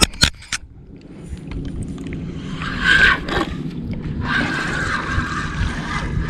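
Crab trap being hauled up out of the water, with a few sharp knocks at first and then water splashing and streaming off it, the sound building from about a second in.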